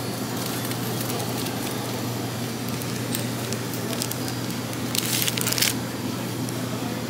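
Plastic pastry wrapping crinkling as a wrapped pie is handled, with one loud brief crackle about five seconds in, over a steady low hum.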